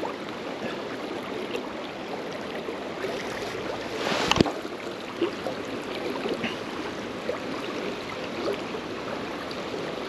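River water flowing steadily over a shallow run. About four seconds in there is a brief louder rush that ends in a sharp knock.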